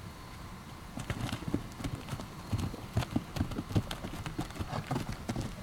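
Hooves of a heavy draft-horse mare and foal striking turf and packed dirt as they walk and trot, an irregular patter of dull thuds with sharper clicks, several a second, starting about a second in.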